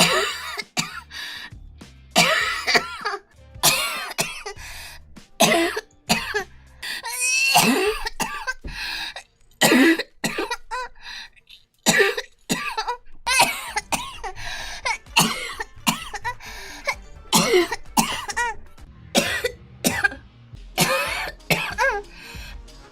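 A girl coughing over and over, short separate coughs about one to two a second, some with a voiced hack.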